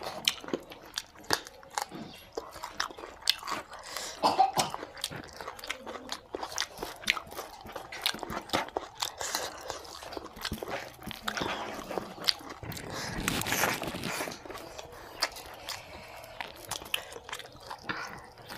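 Two people eating rice and mutton curry with their hands, close to the microphone: wet chewing and lip smacking with many short sharp clicks. About thirteen seconds in there is a denser noisy stretch lasting about a second and a half.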